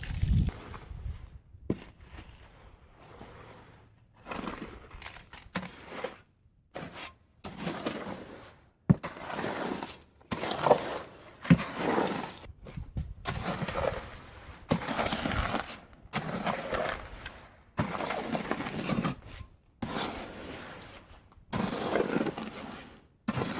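Repeated gritty scraping strokes, roughly one a second, from a tool working through concrete mix, with an occasional sharp click of metal on grit.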